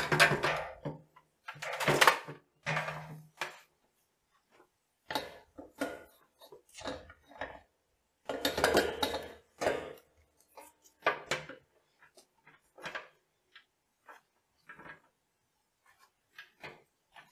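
Handling noise from a laptop docking station and its cables being moved and picked up: a string of irregular clicks, taps and rattles of hard plastic and cable, louder about two seconds in and again around nine seconds.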